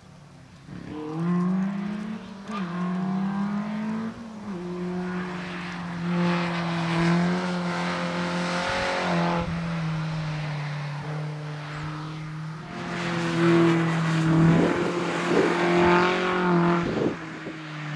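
Škoda 130 RS race car's engine held at high revs through a cone slalom. The note climbs about a second in, dips briefly a few times as the throttle is lifted, and grows louder again in the second half.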